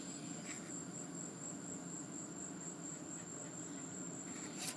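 Insects trilling: one steady, high-pitched tone with no break. A single short click comes near the end.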